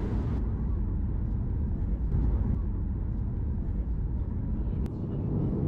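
Steady low rumble of a vehicle in motion, with a single faint click near the end.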